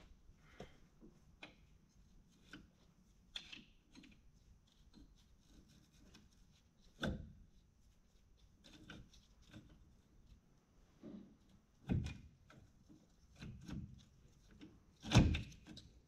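Light metal clicks, taps and scrapes of a screwdriver and clutch discs being worked into line in the clutch drum of a Carraro transmission, with three louder knocks, the last and loudest near the end.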